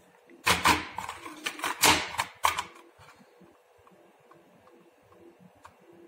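Hard plastic clicks and knocks as the housing of a Bolid manual fire alarm call point is handled and its front cover is snapped back onto the base. There is a quick cluster of sharp clicks in the first three seconds, then only a few faint ticks.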